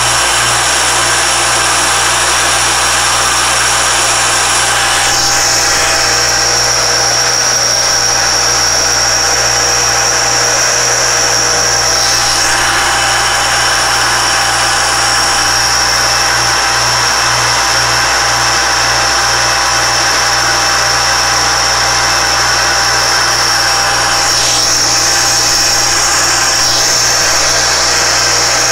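Alexander Model 3A pantograph engraving machine running steadily while engraving a metal watch-dial blank: the belt-driven spindle gives a high whine over a steady mechanical hum. Its tone shifts slightly a few times as the cut goes on.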